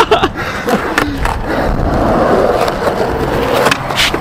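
Skateboard on concrete: the board strikes the ground with sharp clacks near the start, about a second in and again near the end, its wheels rolling steadily in between, during a flip trick.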